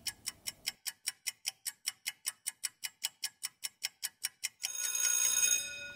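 Countdown timer sound effect: clock-like ticking, about six ticks a second, then, as the countdown runs out, a ringing tone of several steady pitches for about a second and a half.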